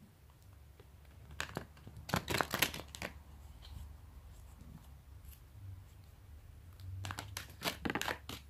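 A deck of tarot cards shuffled by hand, the cards slapping and rustling against each other in two quick bursts, one starting about a second and a half in and another around seven seconds in.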